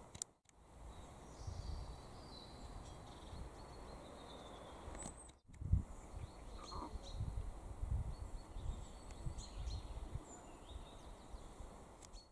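Outdoor ambience: small birds chirping in short calls over a faint, uneven low rumble. The sound briefly cuts out twice, once near the start and once about five seconds in.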